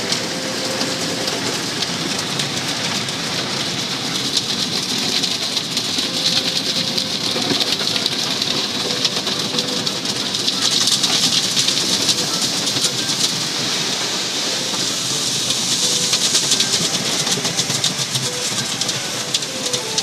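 Automatic tunnel car wash heard from inside the car: water spraying on the roof and windows while cloth brushes and hanging curtains scrub over the body. It grows louder about halfway through and again near the end.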